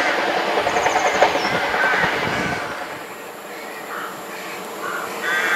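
Omnéo double-deck electric train running away down the line, its wheels clattering rhythmically over the rails, cutting off about two and a half seconds in. After that it is quieter, with a bird calling a few times over a faint rail hum.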